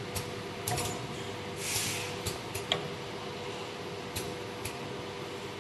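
Circular saw blade sharpening machine running: a steady motor hum with a held tone, broken by a series of sharp mechanical clicks, about seven of them. A brief hiss comes about two seconds in.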